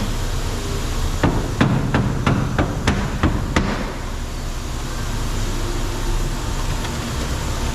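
About eight quick hammer strikes, roughly three a second, on a car's quarter panel, over a steady low hum.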